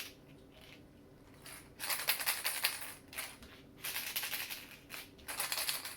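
Plastic eggs filled with buttons, shaken as homemade sound shakers: several short bursts of rattling, buttons knocking inside the plastic, starting about two seconds in as two eggs are shaken in turn. The two do not sound the same, so they are not a matching pair.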